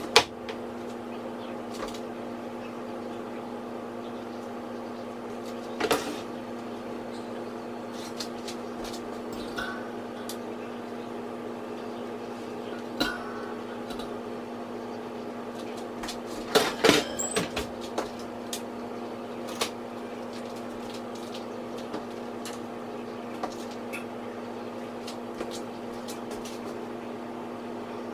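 A steady low mechanical hum, like a kitchen appliance running, with scattered light clicks. About 17 seconds in, a short cluster of knocks and clatter as a hot ceramic baking dish is set down on a metal wire cooling rack.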